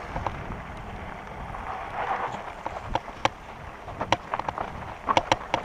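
Wind rushing over a helmet-mounted microphone and the rumble of an REI Co-op 2.1 hardtail mountain bike's tyres rolling down a dirt trail. Sharp clicks and rattles from the bike come as it rides over rocks, more of them and closer together in the second half.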